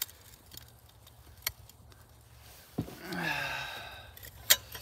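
A few sharp clicks, and about three seconds in a person's falling groan of dismay.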